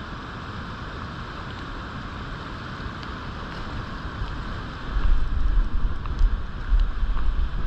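Steady rush of river water, with wind buffeting the microphone in uneven low rumbles from about five seconds in.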